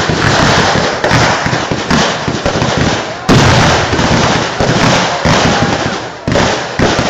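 Temple-festival fireworks display: a steady string of loud bangs from bursting shells, roughly one a second, each fading off before the next.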